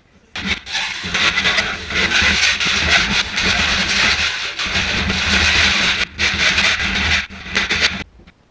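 Hand hacksaw sawing through a thin sheet-metal panel in quick, continuous strokes. The sawing breaks off briefly twice and stops shortly before the end.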